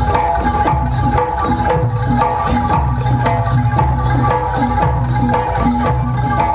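Live jaranan gamelan accompaniment: hand drums with tuned gongs and metallophones playing a fast, steady repeating pattern.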